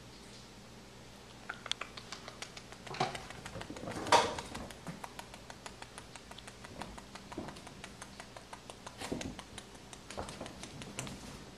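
Pixie-bob kitten's paws and claws pattering and scratching on couch upholstery and a cushion: many light ticks and rustles, with a louder bump about four seconds in.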